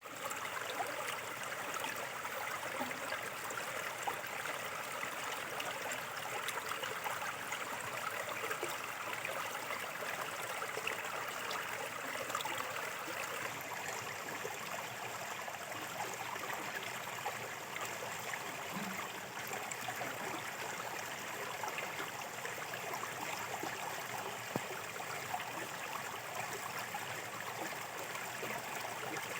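Small river flowing steadily, shallow water running and babbling over stones.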